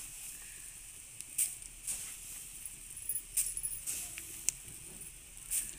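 Perforated metal ladle stirring dry puffed rice in a metal kadai: a light rustle of the crisp rice with about six short, sharp scrapes and clinks of the ladle against the pan.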